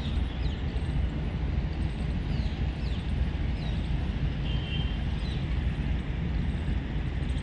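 Steady low rumble, with a few short bird chirps over it.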